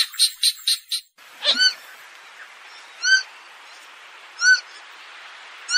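Purple gallinule calling. A fast run of sharp clucking notes, about five a second, breaks off about a second in. After a short gap come single short arched call notes, each about a second and a half apart, over a faint hiss.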